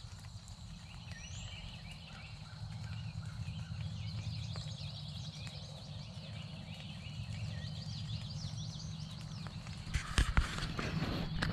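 Songbirds singing in many overlapping chirps and trills over a steady low rumble. In the last second or so there are rustling and knocks as the camera is handled.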